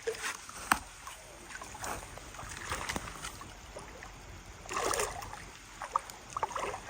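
Water splashing and swirling with scattered small knocks as a hooked carp is played in close to the bank, with a longer swirl of water about five seconds in.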